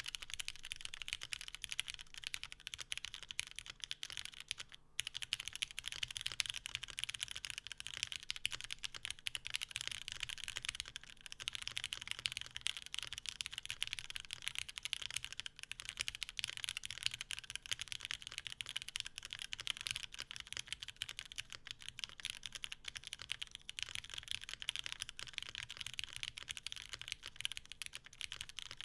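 Continuous typing on a Toro60 mechanical keyboard with lubed Cherry MX Black Hyperglide linear switches in a full aluminium, top-mount plate. The keystrokes make a dense, steady clatter, with a brief pause about five seconds in.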